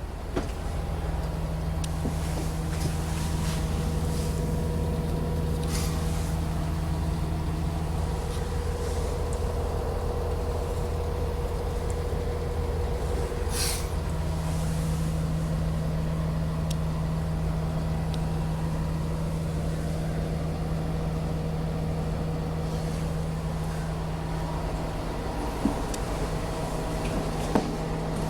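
A 5.9-litre Cummins ISB turbo diesel bus engine running steadily at an even pitch, with two short hisses about six and fourteen seconds in.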